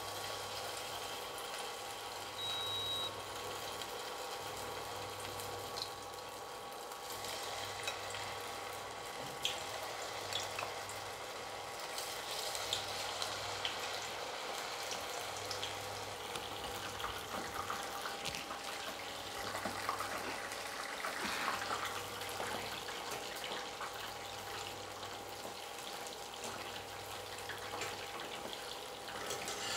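Batter-coated soya chunks deep-frying in hot oil: a steady sizzle with scattered small crackles and pops.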